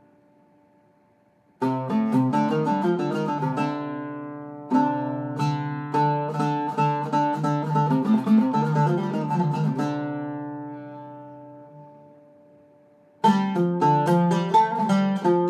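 Iraqi-style Zeryab oud with a cedar top and ebony fingerboard, picked with a plectrum. A quick phrase of plucked notes starts about a second and a half in, is left to ring and fade out from about ten seconds, and a new phrase begins near the end.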